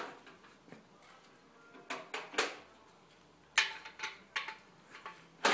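Irregular metal clicks and clinks of a wrench on main bearing cap bolts as the caps are snugged down over a steel fixture bar in a cast-iron engine block. A few come about two seconds in, then a quicker run of them near the end.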